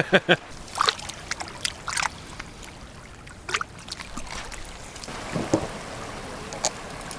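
Shallow seawater sloshing and trickling around hands dipped between rocks, with a handful of sharp clicks and knocks from handling.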